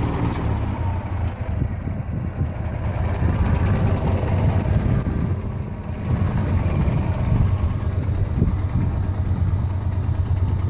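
Massey Ferguson MF65 tractor's Continental G176 four-cylinder petrol engine running steadily. The engine is worn and burning oil, bubbling oil out of the exhaust.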